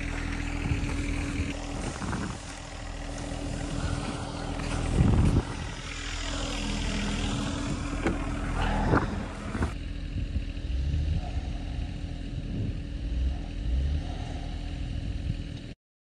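Subcompact tractor's diesel engine idling steadily, with a few knocks and crunching steps in snow and a car door opening about nine seconds in. After about ten seconds the engine sound drops to a quieter low rumble, and it cuts off abruptly near the end.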